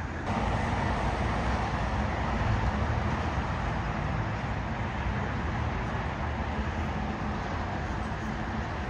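Jet airliner engines running: a steady deep rumble and roar that steps up suddenly a moment in.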